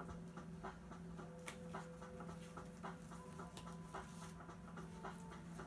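Faint dog panting with scattered small handling ticks, over a steady low hum.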